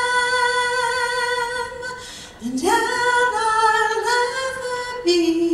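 A woman singing a cappella, holding long notes with vibrato. About two seconds in the note fades, then a new note slides up and is held, dropping to a lower note near the end.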